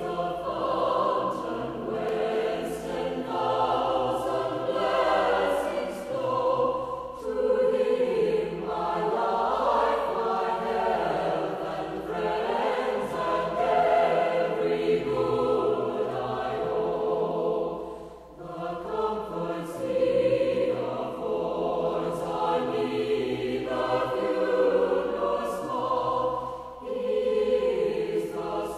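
Background music: a choir singing in long phrases that break every few seconds.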